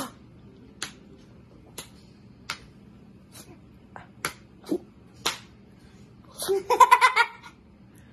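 A child's hand slapping a man's cheek lightly, about nine quick slaps over five seconds, followed about six and a half seconds in by a loud burst of laughter.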